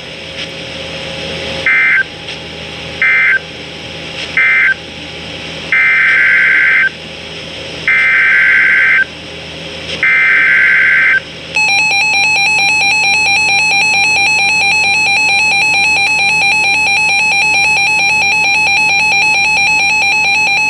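Emergency Alert System SAME data bursts: three short buzzy end-of-message bursts close out the previous alert, then three longer header bursts announce the next one. About halfway through, the loud steady EAS attention tone starts and holds.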